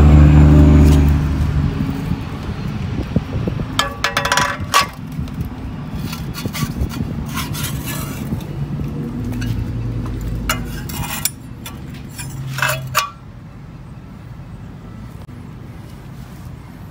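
A low engine drone fades away over the first two seconds. After it come several short clusters of metal clinks and light knocks, like tools and bolts being handled against an engine, over a faint intermittent hum. The clinks stop about thirteen seconds in.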